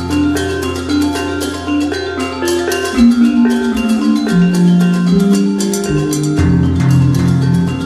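Background music: a melody of struck notes over a bass line that changes pitch several times.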